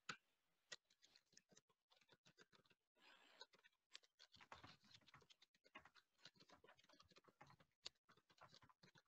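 Faint typing on a computer keyboard: a run of quick, light, irregular keystrokes that gets busier about three seconds in.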